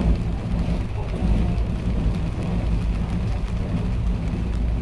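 Ibara Railway IRT355 diesel railcar running along the track, heard from the front of the car: a steady low engine and wheel rumble under an even hiss.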